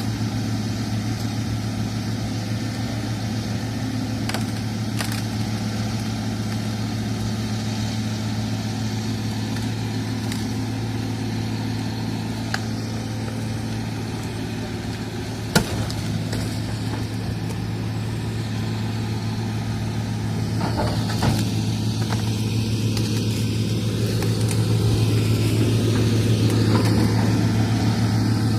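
Hydraulic excavator's diesel engine running steadily, with a few sharp clicks or knocks, the strongest about halfway through. It grows somewhat louder in the last few seconds.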